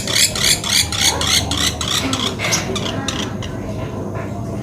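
Woodpecker calling: a quick regular series of sharp, high notes, about four a second, for the first two seconds, then fainter scattered notes.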